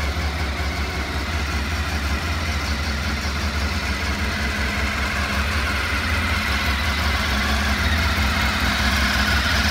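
Honda RC30 VFR750R's 748 cc V4 engine idling smoothly and steadily on a little choke, freshly overhauled and recently cold-started. It gets slightly louder toward the end.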